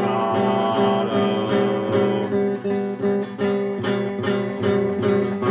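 Guitar strummed in a steady rhythm of chords, with a sung note held over the first two seconds, then the guitar alone.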